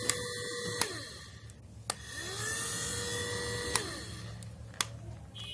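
NOVA hair dryer's fan motor running with a steady whine, now working again after repair. It is switched off with a click about a second in and winds down, clicks back on and spins up around two seconds in, then is switched off again near four seconds and winds down, with a few more switch clicks.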